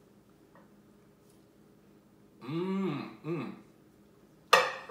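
A man clears his throat with a short two-part voiced "ahem" after a quiet stretch of room tone. A single sharp, sudden sound near the end is the loudest thing.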